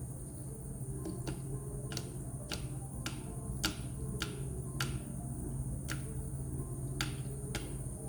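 Water drops from a zero-gravity water-drop humidifier falling into its basin as sharp ticks, roughly two a second, starting about a second in, over a steady low hum from the humidifier.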